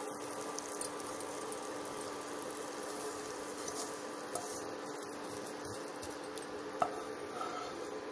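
Spatula scraping and pushing roasted semolina-sugar mixture out of a nonstick kadai onto a steel plate, with a few faint clicks over a steady hum.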